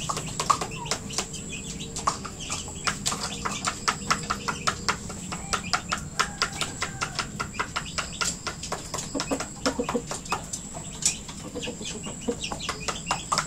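A rooster pecking at feed in a plastic cup, a rapid run of sharp taps about four or five a second, with a few low clucks a little past the middle.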